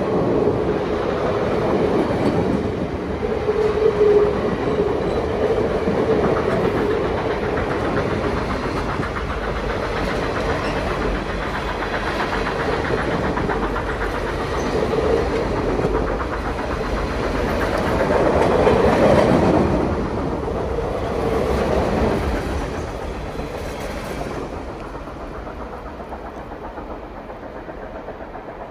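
Railroad passenger cars rolling past at close range, their steel wheels clicking and rumbling over the rail joints. The sound fades away near the end as the last car goes by.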